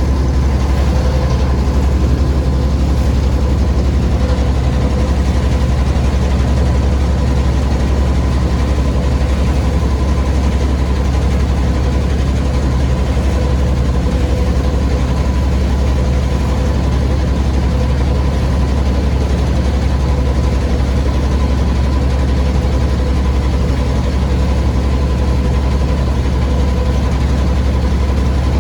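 An engine running steadily at constant speed, a low hum with a steady higher tone over it.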